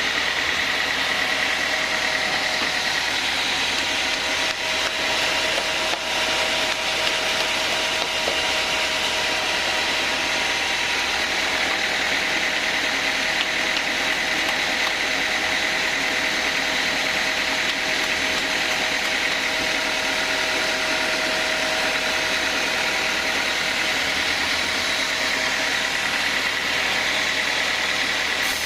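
Sawmill band saw running steadily: a continuous machine sound with a few steady whining tones over even noise.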